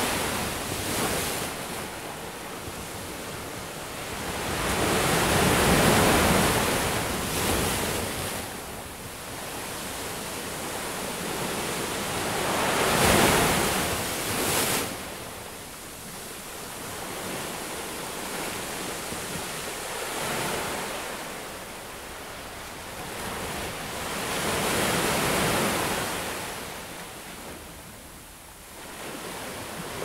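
Ocean waves breaking and washing up a beach, a steady hiss of surf that swells and fades every several seconds, with the loudest breakers about a quarter and about halfway through.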